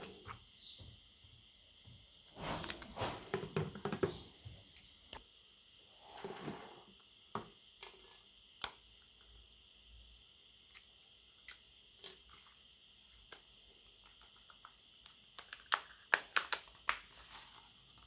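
Handling noise from a tablet being worked on a desk: rubbing and scraping a few seconds in, scattered light clicks, and a quick run of sharp clicks near the end as the SIM card tray is pried out and set down. A faint steady high-pitched hum runs underneath.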